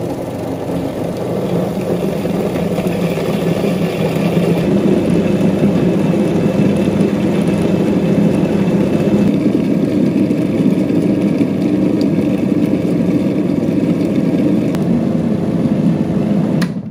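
Robot Coupe food processor running steadily, its blade pureeing poached whole oranges with almond meal, sugar and eggs into a fine batter in the stainless steel bowl. The motor cuts off just before the end.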